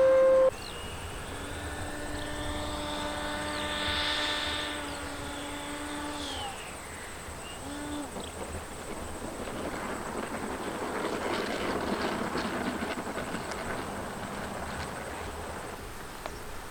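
Radio-controlled model plane flying past, its motor and propeller droning steadily before the pitch drops about six seconds in. A rushing noise then swells and fades as a model passes close overhead.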